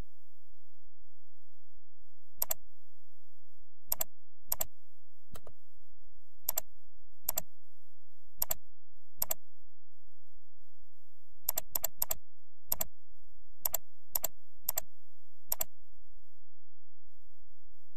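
Computer mouse clicking, about sixteen sharp single clicks at irregular intervals, with a quick run of three about two-thirds of the way in. A faint steady high-pitched whine lies underneath.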